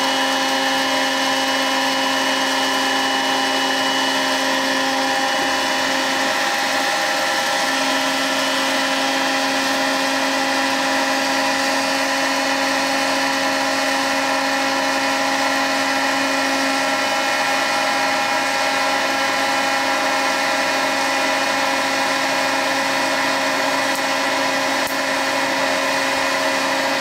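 Hot-air popcorn popper's fan motor and heater running, a steady whirring with a constant whine, blowing hot air through the red popcorn kernels as they heat up.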